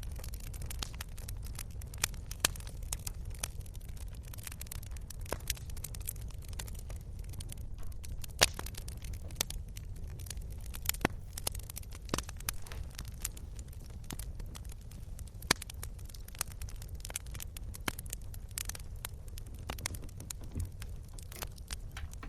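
Wood fire crackling: irregular sharp pops and snaps, a few of them louder, over a steady low rumble.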